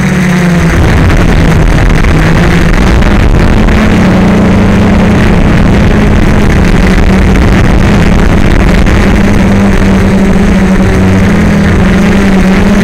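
DJI Flame Wheel F450 quadcopter's stock motors and propellers buzzing steadily in flight, heard up close through the onboard camera. The hum steps up slightly about three and a half seconds in as the throttle changes.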